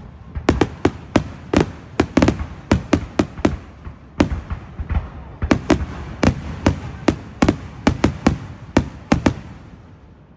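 Aerial fireworks shells bursting in rapid succession, many sharp bangs with echoing rumble between them. The bangs pause briefly about four seconds in, pick up again, then stop near the end and the echo fades away.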